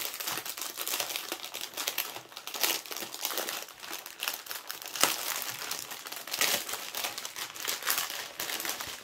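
Clear plastic bag crinkling and crackling as hands unwrap and pull at it around a bundle of smaller drill bags, with a couple of louder crackles about three and five seconds in.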